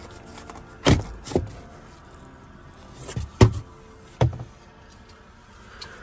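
A handful of sharp knocks and thumps inside a vehicle, the two loudest about a second in and about three and a half seconds in, over a low background hum.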